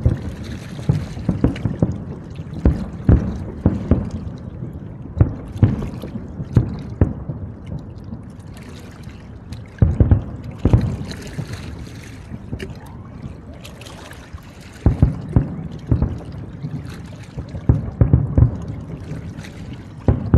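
Aerial fireworks shells going off, a string of sharp booms, some in quick clusters, with a lull a little before the middle.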